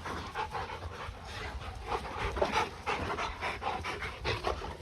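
Rottweiler puppies panting in quick, repeated breaths.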